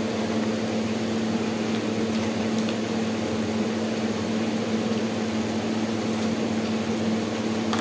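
Steady machine hum of a running room appliance: a constant low tone over an even hiss.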